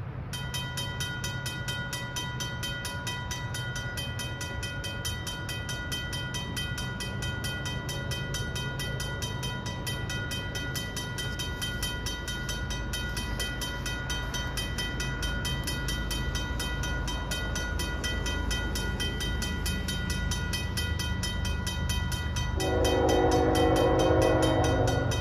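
Griswold/RACO mechanical crossing bell starts ringing just after the start, a fast, even run of strokes, over a low rumble of the approaching diesel locomotives. Near the end the lead locomotive's Nathan K5HL horn sounds a loud, long chord.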